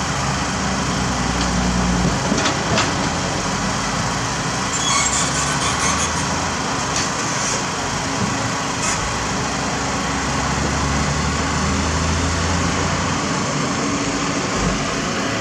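Heavy diesel engines of roadworks machinery and trucks running steadily, with a few light knocks.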